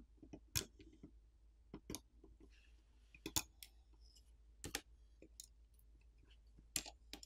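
Faint, irregular clicks and taps from a plastic pry tool and fingertips prying a smartphone's main board loose from its mid-frame and lifting it out.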